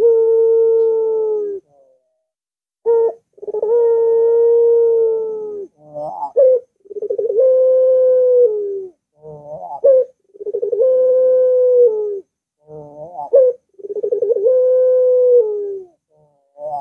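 Barbary dove of the long-voiced puter pelung type cooing over and over, about every three and a half seconds. Each call is a short quick stuttering note followed by a long held coo of about two seconds that drops at its end.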